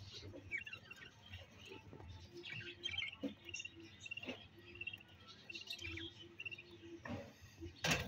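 Budgerigars chattering in quick runs of high, squeaky chirps. A sharp knock sounds near the end.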